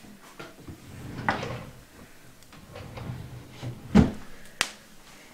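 Close rustling and handling as a strand of hair is tied off with a small elastic band, then two sharp clicks about four seconds in, the first the loudest.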